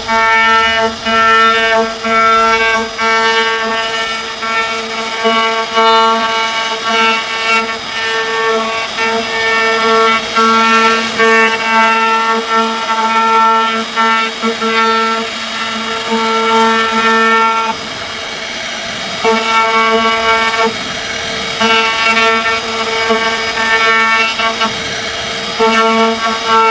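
Background music: a horn-like wind instrument plays repeated notes on one pitch in short rhythmic phrases.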